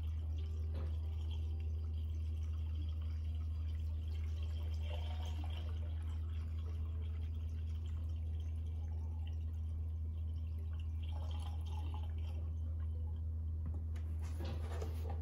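Engine coolant being poured from a plastic jug into a radiator filler neck, the liquid running and dripping into the neck, over a steady low hum.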